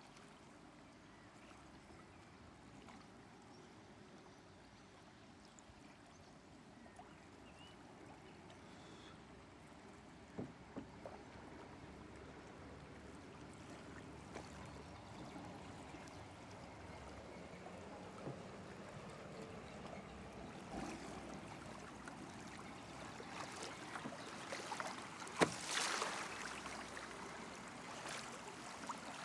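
Faint river water rippling and lapping around a moving canoe, with occasional sharp paddle splashes that come more often and louder in the last few seconds.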